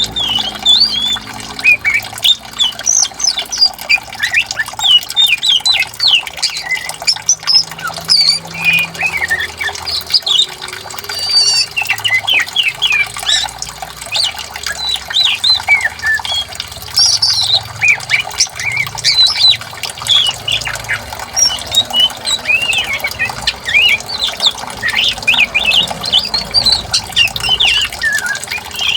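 Several songbirds chirping and calling busily, many short rapid notes and quick pitch glides overlapping without pause, over a faint rush of flowing water.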